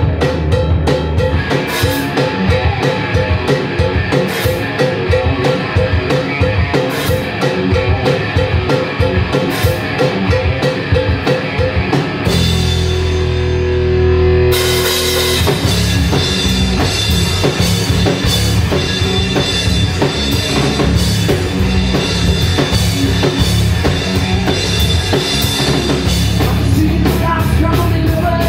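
Live rock band playing loud: electric guitar, bass guitar and drum kit. About twelve seconds in, the drums drop out for a couple of seconds while a chord rings on, then the full band comes back in; singing starts near the end.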